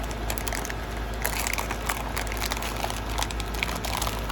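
Dry crinkling and crackling from a crisp roasted seaweed snack and its packaging being handled or chewed: many small, irregular crackles over a steady low background hum.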